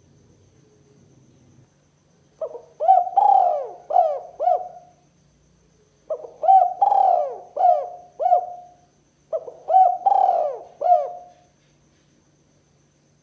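Spotted dove cooing: three phrases of quick, rolling coo notes that rise and fall, starting about two seconds in, with short pauses between them.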